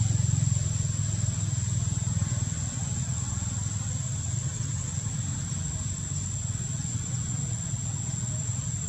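Low rumble of a distant engine, slowly fading away, over a steady thin high-pitched whine.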